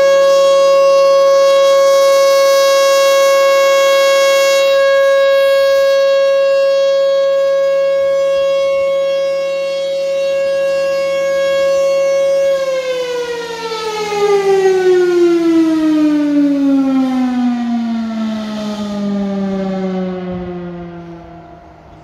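Federal Signal Thunderbolt 1000 rotating civil defense siren ending its one-minute steady alert: it holds one steady tone, then a little over halfway through it winds down, the pitch falling smoothly to a low growl. Its loudness swells and dips as the turning horn sweeps past.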